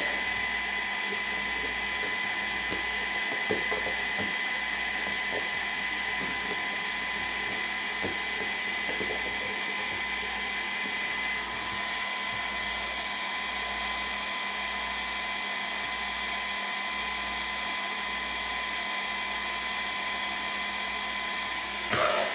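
Small toy 3D printer running a print: a steady whirring hum with a constant high whine.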